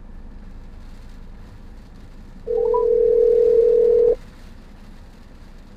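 Telephone ringback tone of an outgoing call: a single steady tone lasting under two seconds, the ring heard while waiting for the other end to answer. It sounds over a low steady cabin hum.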